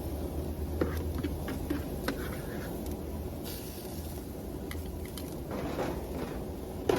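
Scattered light clicks and knocks of a skirt steak being handled onto a grill, over a steady low rumble.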